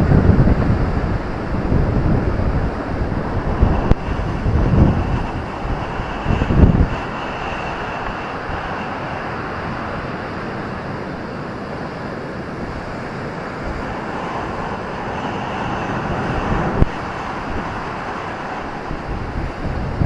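Ocean surf washing onto a beach, a steady hiss of breaking waves that swells again past the middle, with gusts of wind buffeting the microphone in the first several seconds.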